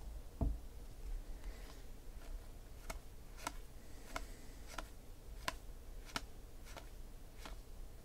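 Baseball trading cards being dealt one at a time from a hand-held stack, each card giving a sharp tick, about one every half second to second. A soft thump comes just after the start.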